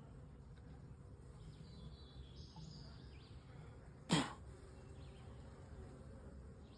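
Honeybees buzzing faintly around an open NUC hive. About four seconds in there is a single brief, sharp sound, louder than the buzzing.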